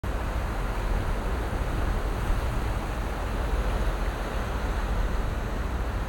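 Steady rushing noise with a heavy low rumble: wind buffeting the microphone over the churning propeller wash and broken ice in a diesel icebreaker's wake as it pushes through solid sea ice.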